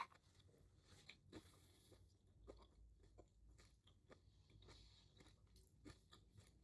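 Faint close-up chewing: soft, irregular mouth clicks and smacks of someone eating food, with a sharper click right at the start.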